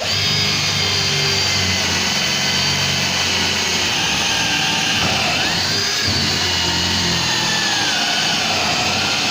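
Electric drill with a 10 mm bit running steadily, boring a hole through plywood into old parquet flooring; its motor pitch sags and recovers a little about five seconds in as the bit loads up.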